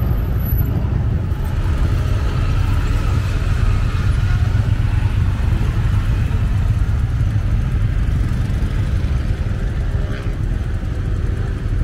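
Motorcycle engines running as riders move slowly along a road, under a steady low rumble that dominates.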